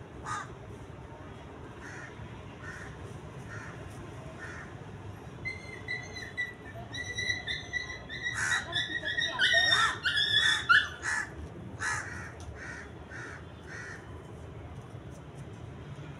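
Birds calling outdoors: a few faint, evenly spaced calls at first, then a louder bout of rapid, harsh repeated calls through the middle that dies back to faint calls near the end.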